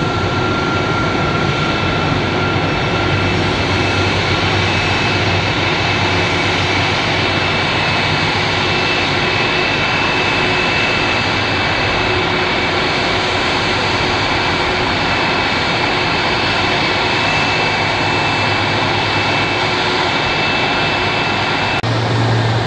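Boeing 747-400 freighter's four turbofan engines at taxi power: a steady jet roar with a high, even whine.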